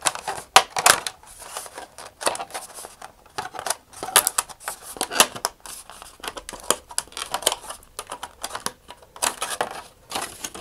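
Thin vacuum-formed plastic sheet flexed back and forth by hand along a scored line, crackling and clicking irregularly as it splits along the score.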